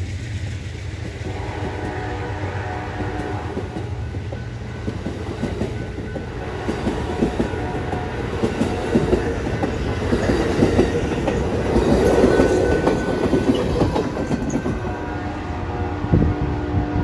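Amtrak Superliner double-deck passenger cars rolling past at speed, wheels clattering over the rail joints. The locomotive's horn sounds further off in the first few seconds and again near the end.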